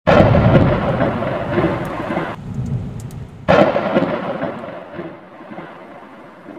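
Thunderstorm sound effect: two sudden crashes of thunder, one at the start and another about three and a half seconds in. Each rolls off slowly, and the first breaks off abruptly after about two seconds.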